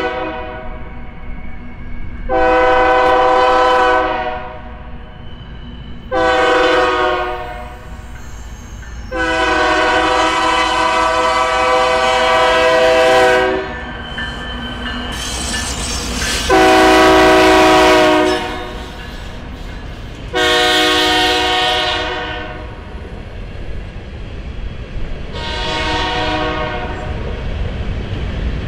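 Diesel freight locomotive's air horn sounding a chord in a series of about seven blasts, mostly one to two seconds long with one of about four seconds, over the low rumble of the engines. Later the empty covered hopper cars roll past, their wheels clacking over the rails.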